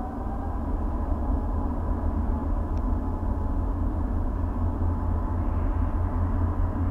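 Airbus A380's four turbofan engines at take-off thrust at the start of the take-off roll: a steady, heavy rumble with a fan whine that climbs slightly in pitch over the first second, then holds.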